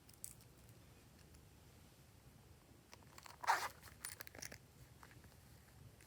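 Slime being kneaded and stretched by hand while it is mixed: soft sticky crackles, with one louder squelch about halfway through followed by a few small clicks.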